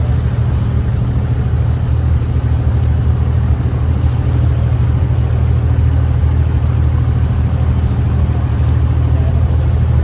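Abra water taxi's diesel engine running at a steady speed: an even, low drone.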